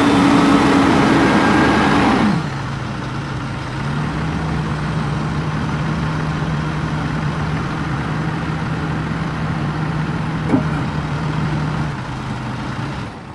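Caterpillar 4.4-litre diesel engine of a Kershaw Skytrim 75XT tracked tree trimmer running fast, then dropping to a steady idle about two seconds in. A single short click near the end.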